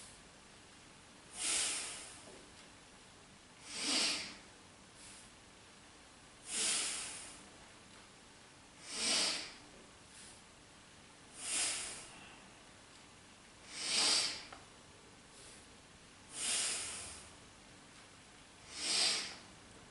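A person breathing deeply and audibly in a steady rhythm, alternating inhales and exhales about every two and a half seconds. The breaths are paced with a yoga core exercise of drawing the knees to the chest on the inhale and extending the legs on the exhale.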